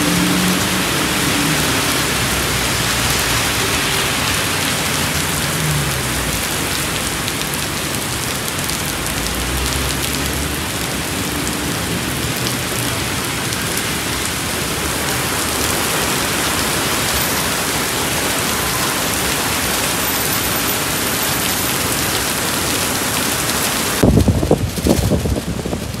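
A heavy rainstorm: a steady downpour hissing and splashing on pavement and parked cars. About two seconds before the end, the rain noise drops away and gusts of wind buffet the microphone in uneven bumps.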